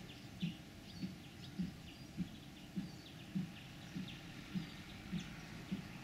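Small square hay baler working: its plunger thumps in a steady rhythm, just under two strokes a second, with faint high chirps and ticks over it.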